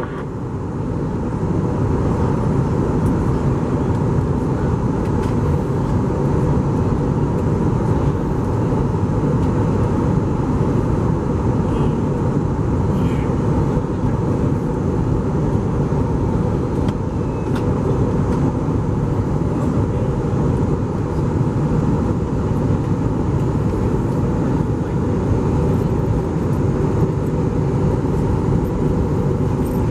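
Steady cabin noise of an Airbus A320 in flight: an even mix of engine hum and air noise that holds level throughout.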